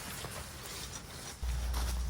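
Rain and wind, with scattered taps of drops. About a second and a half in, a loud low wind rumble on the microphone starts suddenly.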